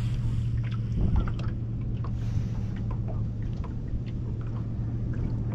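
Steady low hum of a boat motor, with scattered light clicks and ticks, one a little louder about a second in.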